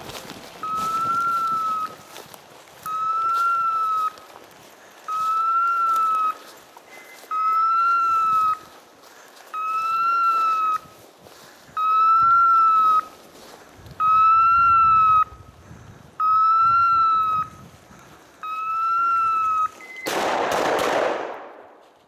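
Hunting dog's beeper collar sounding a steady series of identical high beeps, each about a second long and about two seconds apart, ten in all. Near the end a brief loud rushing noise comes up and fades away.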